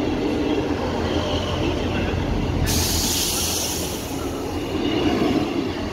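Northern Class 158 diesel multiple unit running past close by, its underfloor diesel engines humming steadily under the rumble of the coaches on the rails. A loud hiss starts suddenly about halfway through and fades over about two seconds.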